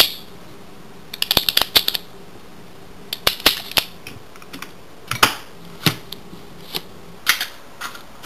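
Irregular sharp clicks and clacks of hard parts being handled while a homemade coilgun and its spring-loaded magazine are loaded, with a quick cluster of clicks early on and single knocks spaced further apart after it.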